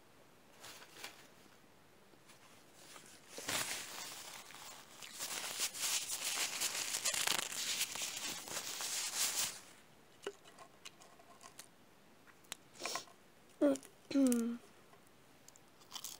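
Close-miked eating sounds of a person eating a cheeseburger and fries. A few seconds in there is a long stretch of crisp crackling and crinkling, then scattered small clicks and two short hummed sounds near the end.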